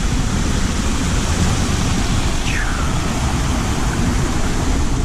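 Mountain stream rushing over rocks and small cascades, a steady hiss of water with a heavy low rumble underneath. A short falling whistle cuts through about halfway through.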